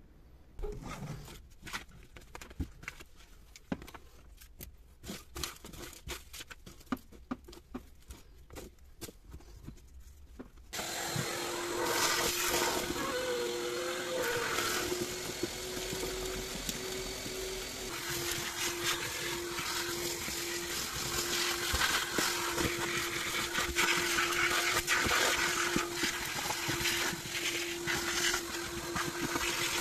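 Light clicks and knocks as rubbish is picked out of a car's floor well. About eleven seconds in, a vacuum cleaner switches on abruptly and runs steadily with a constant hum, with crackles of grit and leaves being sucked off the floor carpet.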